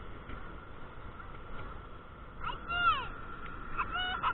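Geese honking: two arched calls, about two and a half seconds in and again near the end, over steady background noise.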